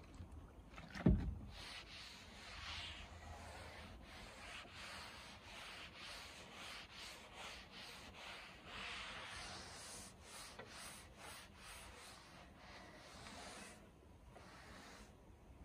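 Sponge scrubbing back and forth over a wet wooden tabletop in a run of rubbing strokes that stop near the end. A single low thump comes about a second in.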